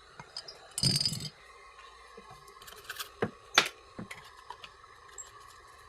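Scattered clicks and taps of small objects being handled, with a brief rustling scrape about a second in and a run of sharper clicks around the middle, over a faint steady whine.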